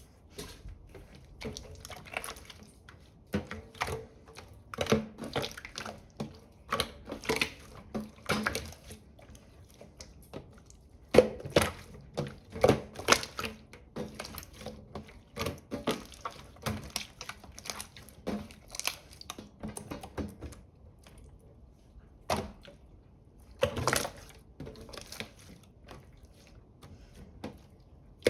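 Clear slime being squished and pressed by hand, giving wet clicks and pops in irregular clusters with short pauses between.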